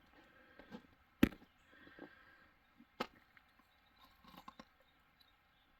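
Handling noise: a sharp click about a second in, another at about three seconds, and a few fainter taps and knocks in between.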